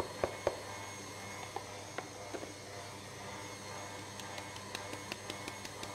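Stand mixer motor running steadily at medium speed while beating eggs and sugar, with a few light clicks of utensils in the first couple of seconds. From about four seconds in comes a fast, even tapping, about five taps a second: a sieve being tapped to sift flour, baking powder and cocoa.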